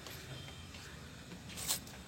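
Faint handling noise of hands working on engine-bay parts, with one short sharp click near the end, as a removed connection is being refitted.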